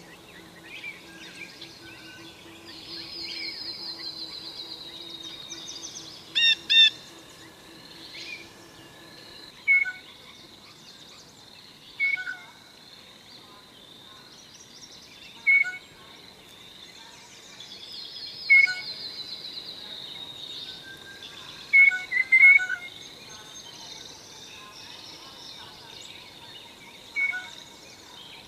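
Blue jay calling: a loud pair of calls, then short single calls every few seconds, with a quick cluster of three about two-thirds of the way through. Other birdsong runs behind, with two long falling trills and a steady high note.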